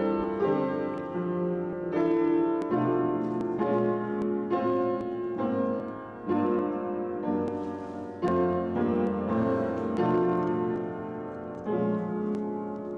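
Solo piano playing a slow, classical-style piece, with chords struck about once a second and left to ring.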